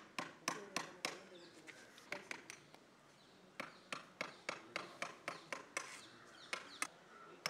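Chisel being struck into an elephant's ivory tusk: sharp, irregular knocks, a few a second, with a short pause about three seconds in.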